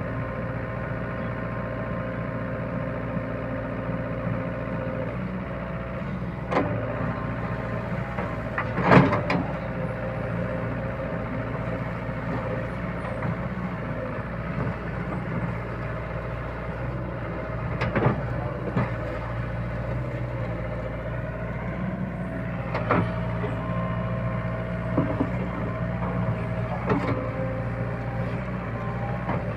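SDLG crawler excavator's diesel engine running steadily under load as the boom and bucket work in deep mud, with a few short sharp knocks now and then, the loudest about nine seconds in.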